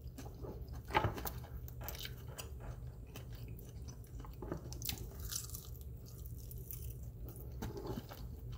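A person chewing and biting honey barbecue chicken wings close to the microphone, with irregular wet mouth clicks and smacks and one louder smack about a second in, over a low steady hum.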